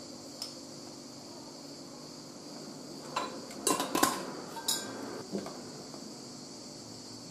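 Metal teaspoon clinking against a glass sugar jar and the jar being knocked and set down, a cluster of clinks about three to five seconds in. A steady high insect chirring runs underneath.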